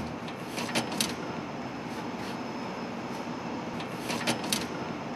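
Steady machinery hum and hiss in an engine room, with a few light metallic clicks and knocks about a second in and again around four seconds in as the red sheet-metal cladding panels on the diesel engine are handled.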